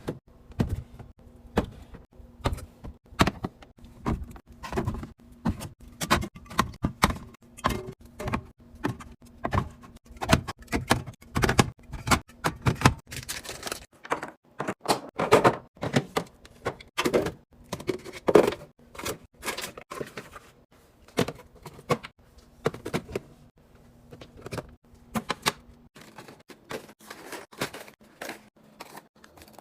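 Objects and plastic containers being handled and set down: a run of irregular knocks, clicks and light clatters, several a second. A faint steady hum runs under them and stops near the end.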